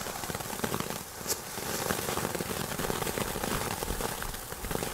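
Small ground firework, a fire-spitter, burning: a jet of sparks sputtering with a steady hiss and dense crackling.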